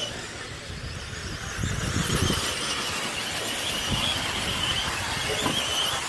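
1/10-scale electric off-road RC cars racing: a high-pitched whine from their motors and drivetrains that grows stronger from about two seconds in, over a low rumble of wind on the microphone.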